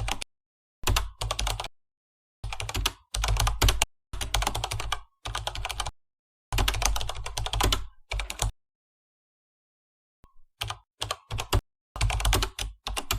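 Rapid clicking in short bursts, like keys being typed, separated by dead silence.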